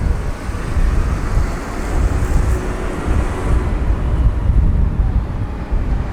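Wind buffeting the microphone on a moving ship's deck, gusting unevenly over the low rumble of the vessel under way.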